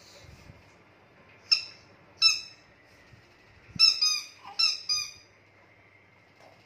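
Squeaky rubber dinosaur toys squeezed, giving about six short, high squeaks at the same pitch, each dropping slightly at the end. The squeaks come one at a time at first and then in quicker pairs.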